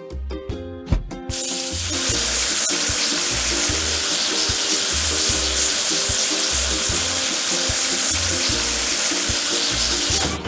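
A few sharp clicks, then a loud steady hiss of spraying water from about a second in until just before the end, as the excavator is washed. Background music with a repeating bass pattern plays throughout.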